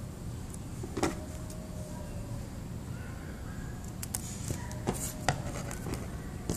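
Scissors snipping a folded paper strip a few times near the middle, with a sharp click of paper handling about a second in, over a steady low background noise.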